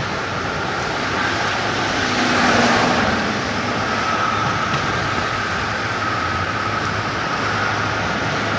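City street traffic ambience: a continuous wash of engine and tyre noise from passing vehicles, swelling louder about two and a half seconds in.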